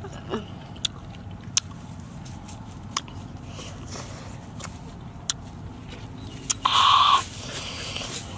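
Mouth sounds of someone biting and chewing firm, crunchy gooseberries: a scatter of sharp clicks and crunches over a steady low rumble, with one louder, short sound about seven seconds in.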